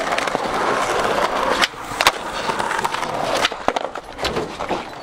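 Skateboard wheels rolling on a concrete sidewalk with a steady grinding rumble. Several sharp clacks of the board and wheels come through it, a pair about a second and a half and two seconds in and another pair about three and a half seconds in, as the board is popped off the curb.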